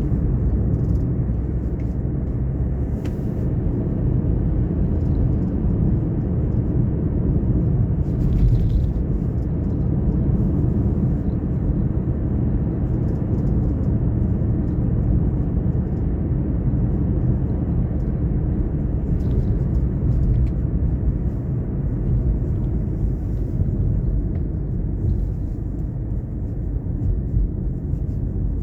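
Car driving along a road: a steady low rumble of engine and tyre noise, with a few faint light ticks over it.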